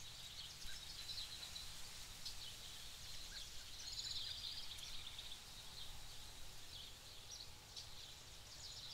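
Faint open-air ambience: small birds chirping and twittering in many short high calls, over a steady low rumble.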